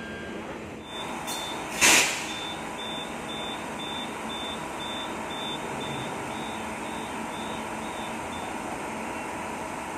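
Door-closing warning beeps of a KTM Komuter electric train: one high beep repeated at a steady pace of nearly three a second for about seven seconds, over the steady hum of the stopped train. A single loud knock sounds about two seconds in.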